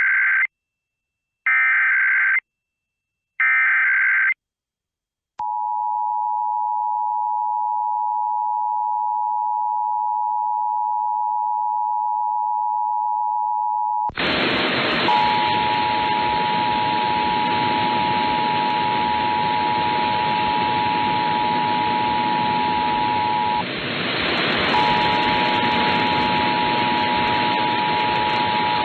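Emergency Alert System test: three short bursts of screechy SAME digital header data, then the EAS two-tone attention signal, a steady high dual tone. Halfway through, a loud hiss joins the tone, and the tone drops out for about a second after some twenty seconds before resuming.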